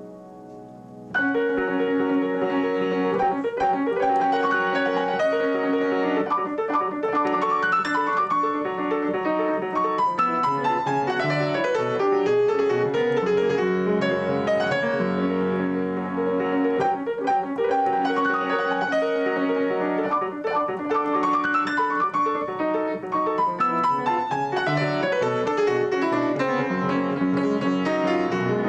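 Grand piano played solo at a quick tempo, slightly out of tune. After about a second of a soft fading chord, it comes in suddenly loud with a rapid passage that runs on without a break.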